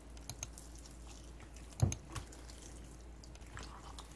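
Wooden spatula stirring thick, wet gochujang paste in a glass bowl: soft wet squelching with light scattered clicks, and one louder knock just under two seconds in.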